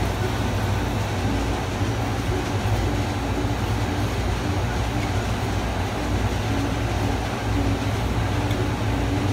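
Steady low mechanical hum and rumble that does not change.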